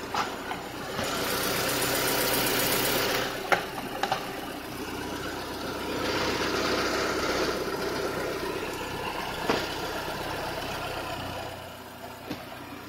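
Renault K4M 1.6-litre 16-valve four-cylinder petrol engine idling steadily with the bonnet open. Two louder hissing stretches and a few sharp clicks come from hands at the oil filler cap and dipstick.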